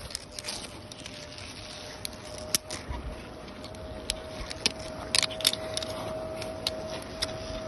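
Close handling noise: a padded jacket rubbing and rustling against the phone's microphone, with scattered clicks and crackles. A faint steady hum runs underneath and grows slightly louder.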